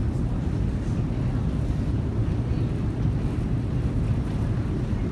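Long metro escalator running with a steady low rumble.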